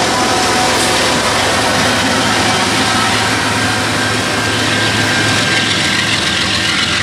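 Two BNSF diesel locomotives pushing as rear distributed power on a freight train pass close by, their engines running under steady wheel and rail noise. The sound is loud and even, with a low engine hum.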